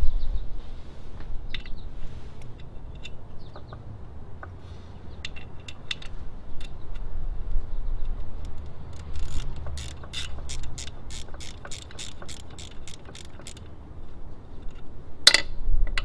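Hand ratchet clicking in a steady run of about four clicks a second, with scattered lighter tool clicks before it and one loud sharp clack near the end.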